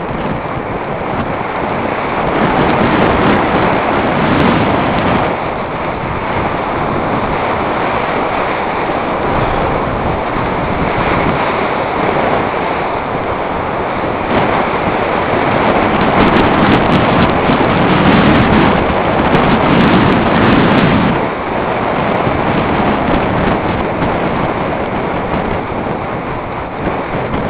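Wind rushing over a helmet-mounted camera's microphone during a downhill ski run, mixed with the hiss of skis sliding on groomed snow. The noise is loud and steady, swelling a few seconds in and again past the middle.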